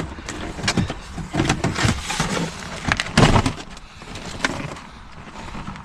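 Handling noise as a camera is moved about in and around a car: irregular rustling, bumps and knocks, the loudest about three seconds in, over a low rumble.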